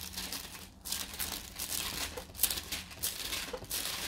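Paper pages of a Bible rustling and crinkling in quick, irregular bursts as they are leafed through to find a passage.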